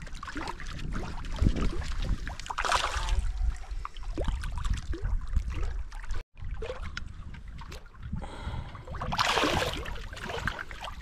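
A hooked smallmouth bass splashing at the lake surface as it is fought to the shore and lifted out, with a steady low wind rumble on the microphone. Two louder splashes come about three seconds in and again near the end.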